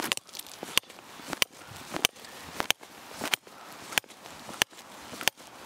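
Handmade copper-headed camping hammer driving a 40 cm forged tent peg into gravel: a steady run of about nine sharp metal-on-metal strikes, roughly one and a half a second, each with a brief bright ring.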